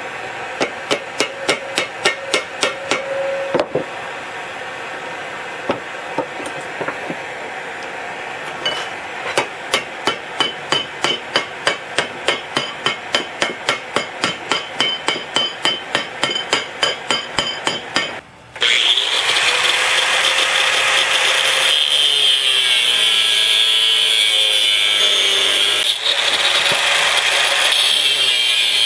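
Rapid hammer blows on steel, about four a second, in two long runs with a few scattered knocks between them. After a brief break about two-thirds of the way through, a small angle grinder runs steadily against the steel vise handle bar, its note wavering as it bears on the work.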